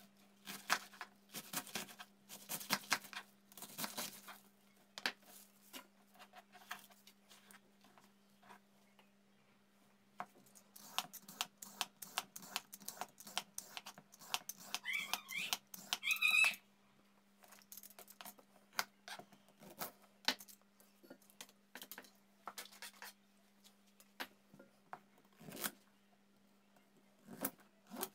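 A kitchen knife slicing through cabbage on a plastic cutting board in quick strokes. Around the middle come rapid rasping strokes of a vegetable peeler stripping a carrot, and after that scattered single knife cuts through carrot onto the board.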